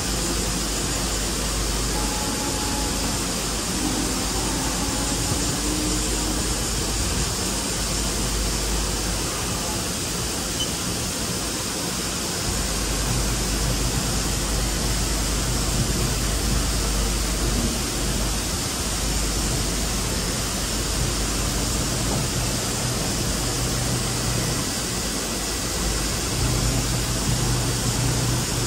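Steady hiss and low hum of a Haas VF-4 vertical machining centre running, its table traversing slowly along the X axis under telescoping way covers. The hum swells a little twice, about halfway through and near the end.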